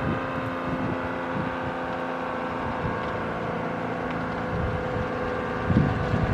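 ACA Screamer S-10 outdoor warning siren sounding a steady tone, with wind buffeting the microphone. The siren is starved of air through its broken-out, sucked-down top lid and its motor is reverse-wired, so it is not very loud.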